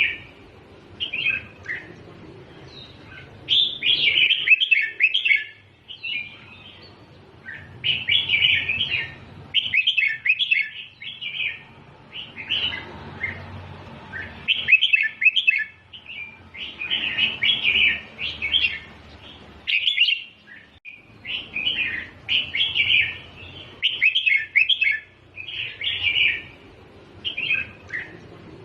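Red-whiskered bulbul singing: loud, quick chirping song phrases, one after another every second or two with short pauses between them.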